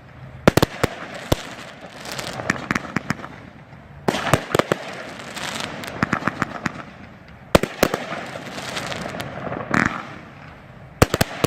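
Planet X 'Rogue' consumer firework going off: clusters of sharp bangs and crackling pops every second or two, with a longer run of crackle about four seconds in.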